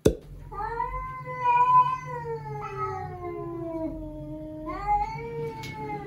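Russian Blue cat yowling at the other cat, a defensive, stressed call. It gives one long, drawn-out yowl that slowly falls in pitch, and a second yowl starts near the end. A sharp click comes at the very start.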